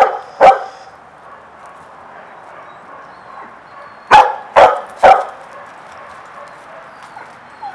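Dog barking: a bark at the start and another about half a second in, then three quick barks about four seconds in.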